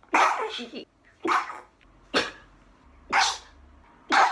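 A person sneezing five times in quick succession, about one sneeze a second, the first the longest, set off by a twisted paper string (koyori) tickling the inside of the nose.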